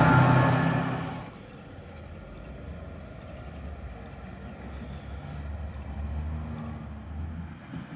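NGTW6 'Leoliner' tram passing close by on the track, with a steady low hum over the running noise; about a second in the sound drops away sharply to a quiet low rumble.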